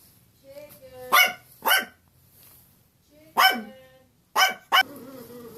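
Pet dog barking five loud, sharp barks in short groups, the sound of a dog barking for attention.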